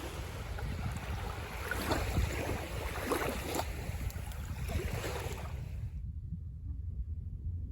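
Sea waves washing with wind buffeting the microphone. About six seconds in, the wash drops away and only a low wind rumble remains.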